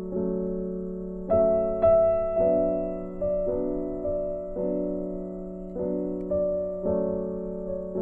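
Background music: slow, soft piano chords, each struck and left to fade, with a new chord about every second.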